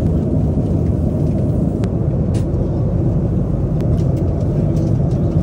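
Steady low rumble of an airliner cabin in flight, the constant noise of engines and airflow, with a few faint clicks.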